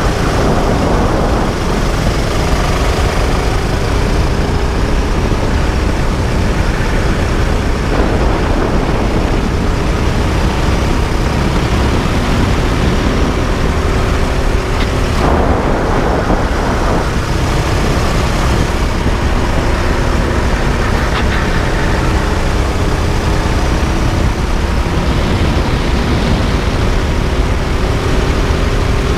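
Rental kart's engine running at racing speed, its pitch rising and falling through the corners and straights, heard through heavy wind rumble on a kart-mounted camera, with a few louder gusts.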